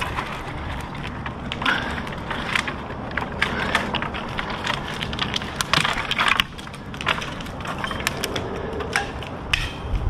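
Dry dead wood and bark crackling and snapping in quick, irregular cracks, with short rustling bursts, as a climber shifts about among the dead limbs of a maple.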